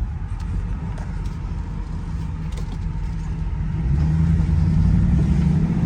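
LS1 5.7-litre V8 of a 1971 Firebird restomod running on the move, with road rumble; it picks up and grows louder about two-thirds of the way in as the car accelerates.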